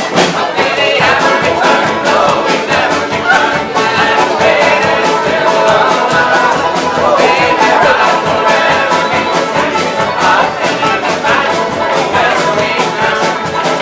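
A live Irish folk band plays a tune together, with fiddles and guitars and bodhrán frame drums keeping a steady, driving beat.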